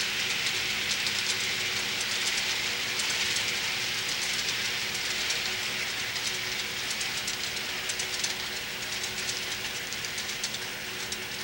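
Model train with no onboard sound system rolling along the track: a steady hiss of metal wheels on the rails with a faint motor hum and many small quick clicks from the wheels crossing rail joints. It grows slightly quieter near the end.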